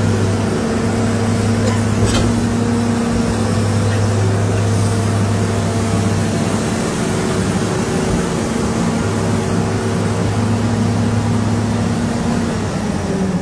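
Excavator's diesel engine running steadily at constant speed, with a single click about two seconds in; the engine note drops near the end.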